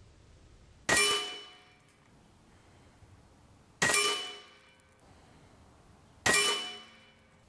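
Three shots from a .30 calibre PCP air rifle (AGT Vulcan 3) firing 59 grain ZAN slugs, roughly three seconds apart. Each is a sharp crack followed by a metallic ringing clang that dies away over about a second.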